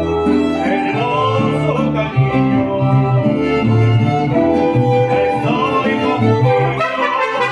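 A mariachi band plays an instrumental passage: violins carry the melody over strummed guitars and a plucked bass line.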